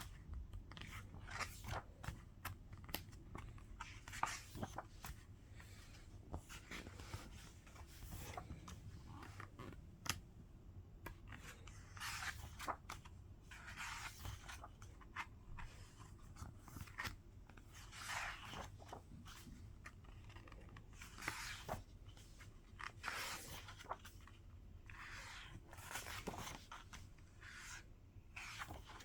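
Hands handling K-pop album packaging: irregular rustling and crinkling of paper and plastic, with scattered sharp clicks and taps.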